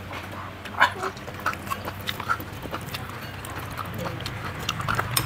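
Close-up eating sounds: scattered wet clicks, lip smacks and chewing as steamed python meat is bitten and gnawed, over a faint steady low hum.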